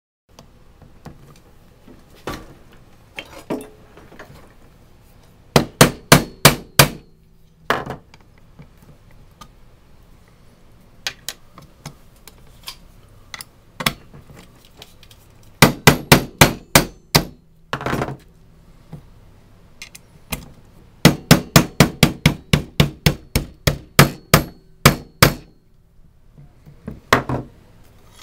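Sharp taps and knocks on parts of a Remington 870 pump shotgun as it is put back together. They come singly and in quick runs of several strikes, a few per second, with the longest run near the end.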